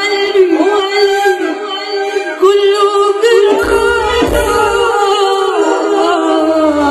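A female singer singing an Arabic song into a microphone with live keyboard accompaniment, holding long notes. A few low beats come in about halfway through.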